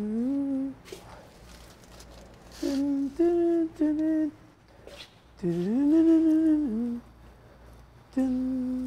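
A man humming a tune to himself in short phrases on a repeated "tinn tinn" syllable, the pitch gliding up and down between short pauses.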